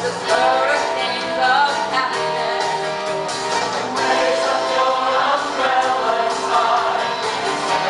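A woman soloist singing lead at a microphone, with a mixed choir singing behind her.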